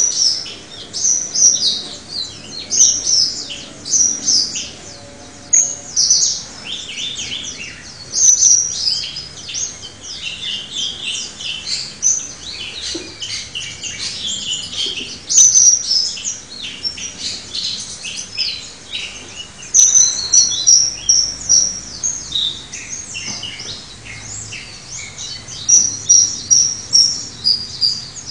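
Caged songbird singing: quick runs of high, sharp chirps and trilled phrases, broken by short pauses and repeated over and over. The song carries its learned fill-in phrases (isian), which the keeper says have not all come out yet.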